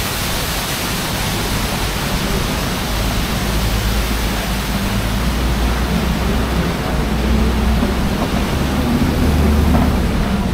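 Steady rush of waterfalls splashing onto rock, over the low, even hum of a safari ride truck's engine as it drives on.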